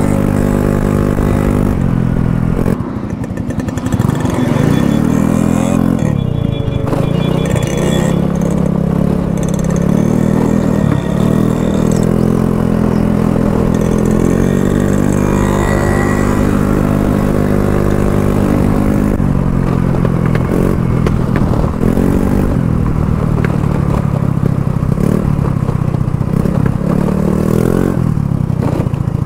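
Motorcycle engine running loudly at road speed, its pitch rising and falling as it is revved. The loudness dips briefly about three seconds in.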